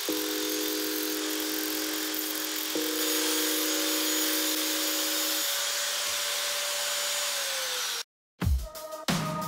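Angle grinder running against steel, grinding the welded joints of a motorcycle brake disc and steel pipe legs, with a steady whine over a hiss. Its pitch drops as it winds down about seven seconds in. After a moment's silence, electronic music with heavy bass beats starts near the end.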